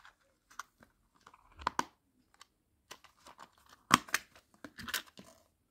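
Flexible clear plastic cassette case being handled with a tape cassette inside: scattered light clicks and rattles of plastic on plastic. The sharpest clicks come about four and five seconds in.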